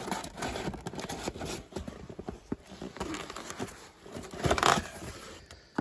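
Cardboard packaging being handled: a small cardboard box pulled out of a larger carton lined with packing, with rubbing, rustling and light knocks, and a louder scrape about four and a half seconds in.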